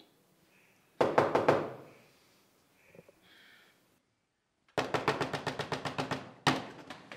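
Two bursts of rapid knocking, about ten sharp hits a second. A short burst comes about a second in, and a longer run starts just past the middle.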